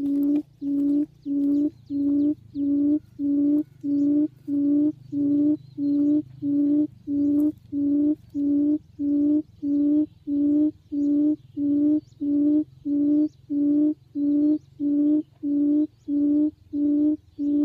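A low hooting quail call repeated at an even rate of about two notes a second with identical pulses, played on a loop from an electronic caller to lure quail to the trap.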